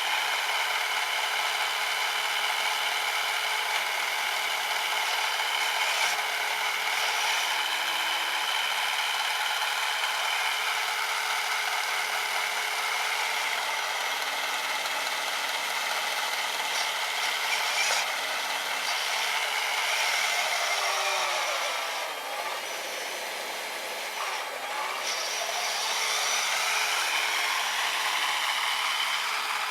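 Whine of the brushed 550 electric motor driving the auger and impeller of a 3D-printed RC snowblower. It runs steadily, then its pitch and loudness drop about three-quarters of the way through before climbing back.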